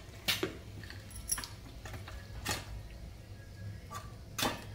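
Hot oil with tempering spices and curry leaves spluttering in a steel kadai, giving off a few sharp pops over a steady low hum.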